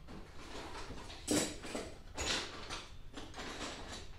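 A run of short scuffs and rustles, roughly two a second, the loudest about a second in and again about two seconds in: a person moving about and handling things on a concrete shop floor.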